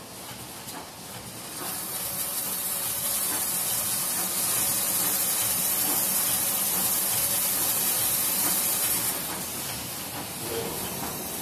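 Toilet paper roll cutting and packing machine running with a steady hiss. The hiss grows louder about two seconds in and eases near the end.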